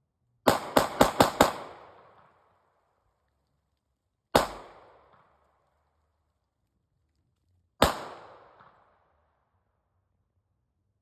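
Gunshots: a rapid string of five shots about half a second in, then two single shots a few seconds apart, each trailing off in an echo.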